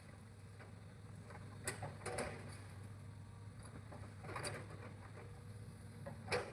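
Hitachi excavator's engine running steadily at a low hum, with a few sharp knocks and clunks from the machine at work, the loudest near the end.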